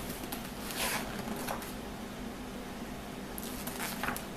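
Paper rustling from a picture book's pages being handled and turned: a few brief swishes over a low steady hum.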